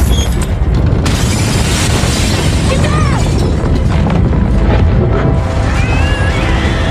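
Film earthquake sound effect: a deep continuous rumble, with a crash of falling and breaking debris starting about a second in, under a dramatic orchestral score.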